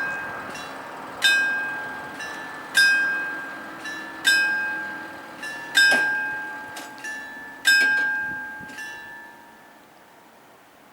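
Level-crossing warning bell ringing, struck about every one and a half seconds, each strike followed by a softer one and left to ring out. The ringing stops about nine seconds in and the last strike dies away.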